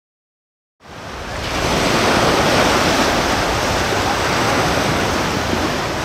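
Small sea waves breaking and washing up on a pebbly beach, a steady surf that fades in about a second in after a moment of silence.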